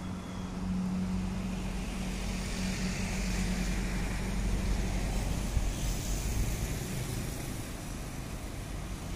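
Road traffic passing: a steady engine hum that fades out about halfway through, over a continuous wash of tyre and engine noise.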